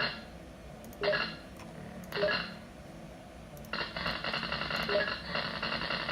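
Glitchy electronic noise from an ESS AudioDrive ES1868F sound card: short buzzy bursts about once a second, which turn into a continuous buzzing glitch a little past halfway. It is the sign of the card malfunctioning in its output.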